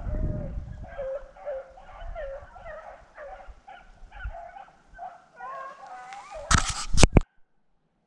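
A pack of beagles baying in quick, overlapping calls while running a rabbit. Near the end come three loud sharp bangs close together, and then the sound cuts off suddenly.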